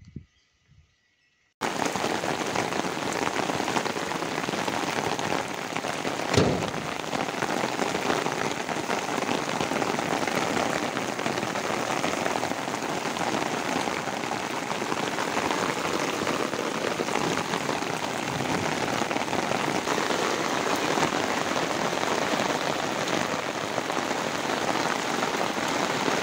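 Heavy rain pouring steadily onto paving and puddles. It starts abruptly about a second and a half in, after a moment of near silence, and there is a single brief thump about six seconds in.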